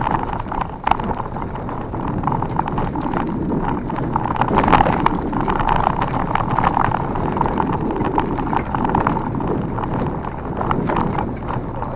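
Bicycle rolling over a rough offroad forest trail: tyres on loose ground, with a steady run of small knocks and rattles from the bike going over bumps, and wind noise on the microphone.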